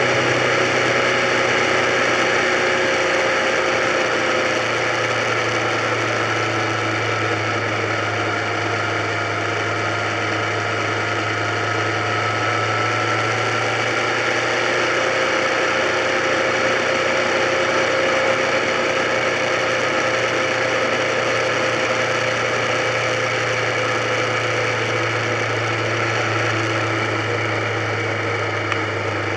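Motorcycle engine running steadily at cruising speed, with wind and road noise. The engine's pitch drifts gently up and down with small changes in speed.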